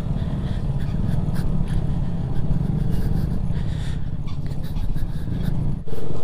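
Motorcycle riding over a rough dirt-and-rock track: a heavy, fluttering low rumble with scattered knocks and rattles from the bumps. The sound drops out for a moment near the end, then carries on steadier.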